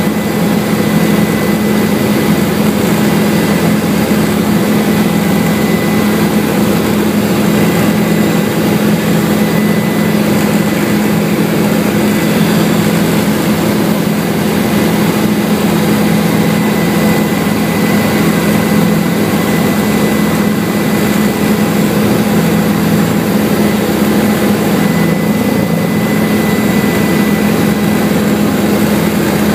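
Tour helicopter in flight, heard from inside the cabin: a loud, steady low drone of engine and rotor with a faint high whine and hiss, unchanging throughout.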